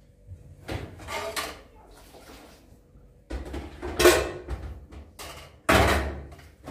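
Dishes and a metal pot knocking and clattering as they are handled at a kitchen sink: a run of separate clanks, the loudest about four seconds in and another sharp one near the end.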